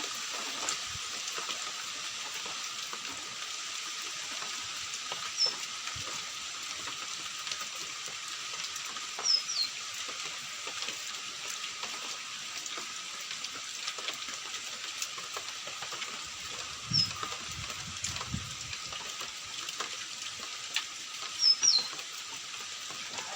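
Steady hiss of falling rain or running water. A bird gives short, high, falling chirps four times, twice in quick pairs, and a brief low rumble comes about two thirds of the way through.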